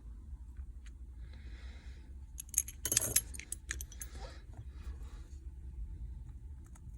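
Small metal repair tools and phone parts clinking and clicking as they are handled, with a cluster of sharp clicks about three seconds in, over a low steady hum.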